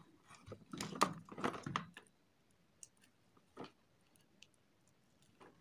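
Faint handling noise from working with test leads and a plug: a cluster of small clicks and rustles in the first two seconds, then a few isolated soft clicks.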